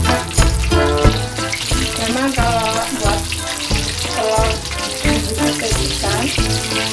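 Peeled hard-boiled eggs sizzling as they fry in hot oil in a wok, a steady hiss. Background music with a regular bass beat and melody plays over it.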